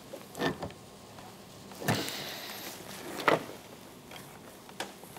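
Handling knocks and scraping clunks, about five in all and loudest about two and three seconds in. They come from a snowmobile's handlebars being rotated by hand on a loosened riser clamp.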